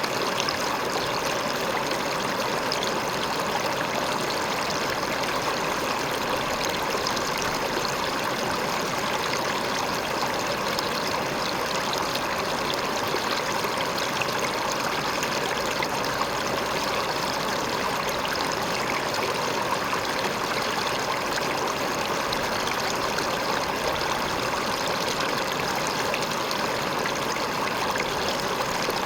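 River water pouring over a rock in a steady, even rush with fine splashing.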